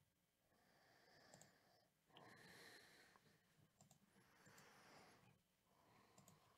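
Near silence: faint room tone with a few soft computer mouse clicks.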